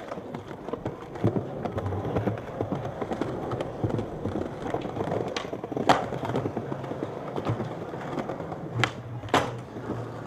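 Skateboard wheels rolling over stone paving, a steady rumble, with sharp clacks of the board on the ground about six seconds in and twice more near the end, about half a second apart.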